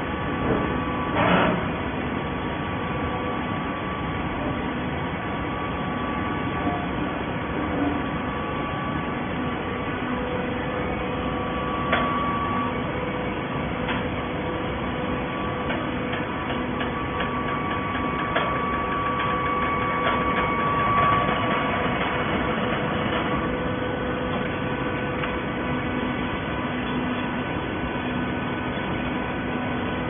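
Automatic horizontal hydraulic baler line running: a steady machine hum with several held tones from the hydraulic power unit and drives, and a few short knocks and clanks.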